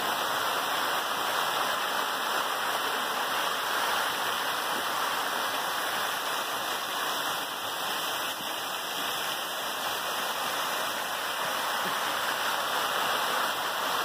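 Thin streams of a partly frozen waterfall falling from an icicle-hung ledge and splashing onto a mound of ice and snow below, a steady hiss of spattering water.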